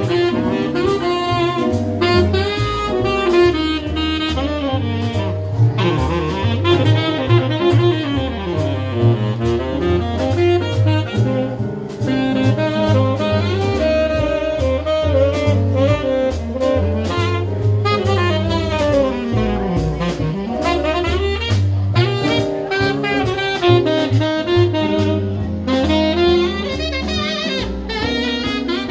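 Live jazz combo playing: a saxophone carries the melody in weaving runs over upright double bass and drum kit.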